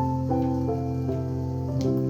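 Background music: a gentle melody of held notes changing every half second or so over a steady low chord.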